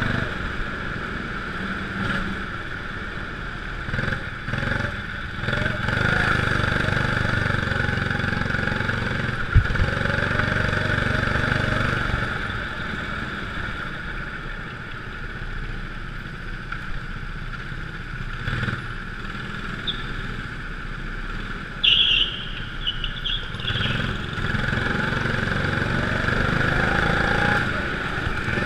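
Go-kart engine running under throttle on an indoor track, its pitch and loudness rising and falling through the laps. A sharp click comes about ten seconds in, and a short high squeal about 22 seconds in.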